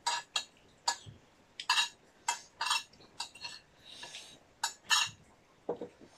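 Metal spoons clinking and scraping against ceramic plates and a bowl during a meal: about ten short, sharp, irregular clinks.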